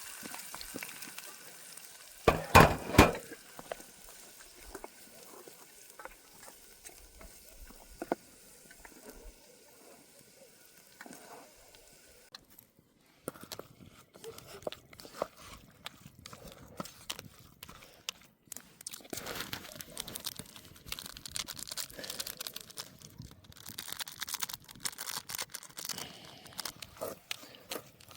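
Camp cooking: a pot of Maggi noodles being worked with a utensil, with a cluster of loud knocks about two seconds in. After that come scattered clicks, then busier scraping and stirring clatter in the second half.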